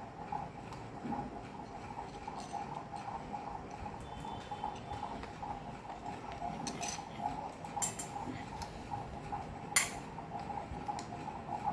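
Metal utensils clinking against a dish while baby-bird feeding formula is prepared: a few scattered sharp clinks, the loudest near the end, over a steady background hum.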